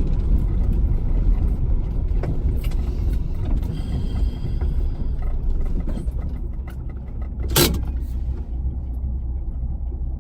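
Datsun 260Z's inline-six on triple Mikuni carburettors running under way, heard from the car, easing off a little after about six seconds. A single sharp thump stands out about seven and a half seconds in.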